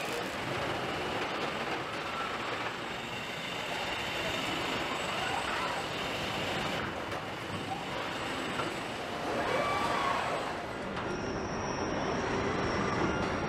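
Factory assembly-line machinery noise from cab body welding robots: a steady mechanical din, with a few short rising and falling whines near the end.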